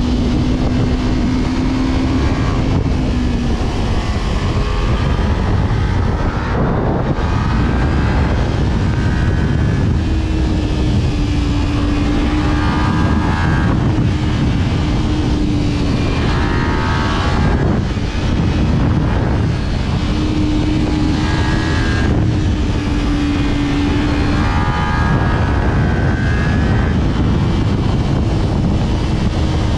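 Kawasaki Ninja 250R's parallel-twin engine, fitted with a WRX aftermarket exhaust, pulling hard under way: its pitch climbs repeatedly as it accelerates, with short breaks at the gear changes, over constant wind rush.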